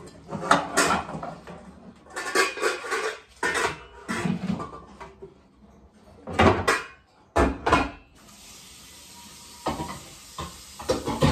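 Metal pots and pans clattering and knocking as they are handled and taken down from a kitchen cupboard, in several irregular bursts. About eight seconds in, a steady hiss starts abruptly and runs on under a last round of clatter.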